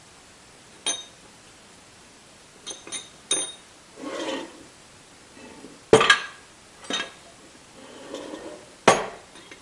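Steel tailstock parts and hand tools clinking and knocking while a part that hangs up on an internal pin is worked free. A few light, ringing metal taps come in the first few seconds, with short scrapes between them, then heavier knocks about six, seven and nine seconds in.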